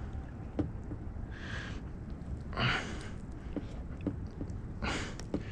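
A man breathing heavily, with three audible exhales like sighs, while his hands unhook a fish. Small clicks and knocks of the hook and lure being handled come through over a steady low rumble.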